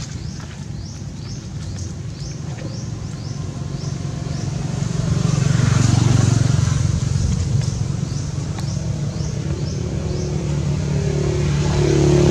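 A motor vehicle passing, its engine growing louder to a peak about halfway and easing off, with another engine approaching near the end. A short high chirp repeats about twice a second over most of it.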